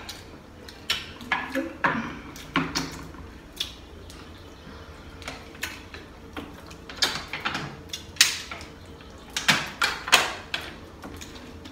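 Scattered clicks and crackles of seafood shells, snow crab legs and shrimp, being cracked and peeled by hand at the table, mixed with the crinkle of a plastic water bottle being handled and drunk from; the sharpest cracks come in a cluster near the end.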